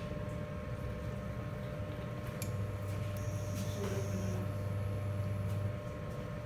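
Steady mechanical hum with a few faint clicks; a deeper hum comes in about two and a half seconds in and drops away near the end, with a brief high whine in the middle.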